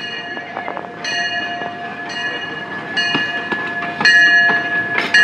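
Bell on the Disneyland Railroad's steam locomotive E.P. Ripley ringing, struck about once a second as the engine pulls into the station, over the rumble and clank of the train rolling by.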